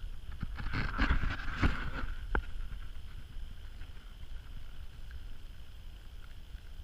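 A few knocks and sharp clicks as the clamped router and its jig are handled and moved, in the first two and a half seconds, then only a low steady rumble; the router motor is not running.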